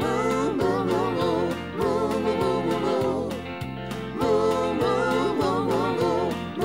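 Upbeat children's song: voices sing "moo, moo" in a bright tune over a light band with a steady beat.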